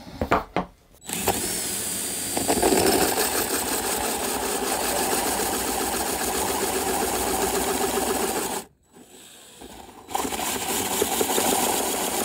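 Electric drill driving a 42 mm hole saw into a fibreglass boat hull, running steadily under load. It stops for about a second and a half near the end, then cuts again. A couple of short knocks come just before it starts.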